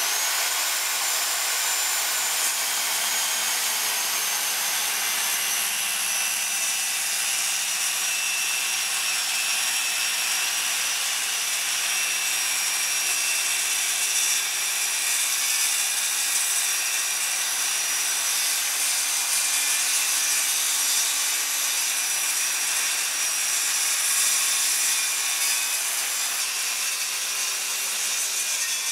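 Corded circular saw running under load, making a long continuous cut 1 3/8 inch deep along laminated wooden timber. Its motor whine sags slightly in pitch over the first several seconds as the blade bites into the wood, then holds steady.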